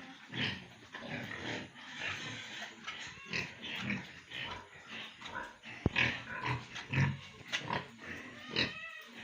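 Pigs grunting in many short, overlapping calls, with a higher-pitched squeal near the end and a sharp click about six seconds in.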